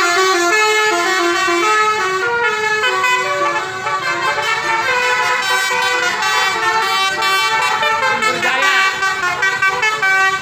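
Tour bus "Basuri" telolet horn playing a quick melody, its flute-like tones stepping rapidly from note to note.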